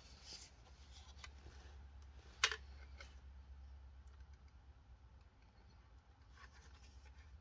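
Faint handling of a plastic toy gun and a ruler, small clicks and rubbing, with one sharp tap about two and a half seconds in, over a low steady hum.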